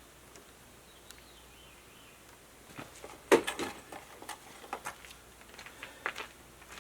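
A scatter of short clicks and knocks over quiet background, with a loud clatter of several knocks about halfway through.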